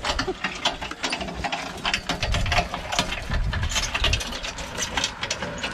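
Steel-framed pony cart rattling as a miniature pony pulls it over bumpy dirt ground: a rapid, uneven run of clicks and knocks with a low rumble underneath.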